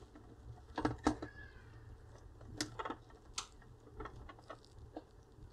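Faint, irregular small clicks and crackles as a soldering iron reflows a capacitor lead's joint on a circuit board.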